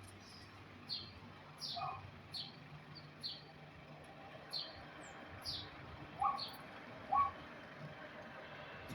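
A bird chirping over and over, short high notes that drop in pitch, roughly one or two a second. A few lower, louder calls come in around the middle and near the end.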